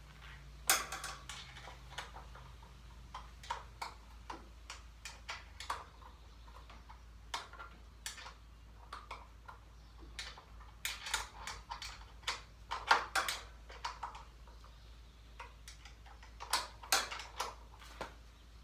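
Irregular metallic clicks and clinks from a socket ratchet and tools working a bolt on a riding lawnmower, a few per second, bunching into quicker runs about two-thirds of the way through.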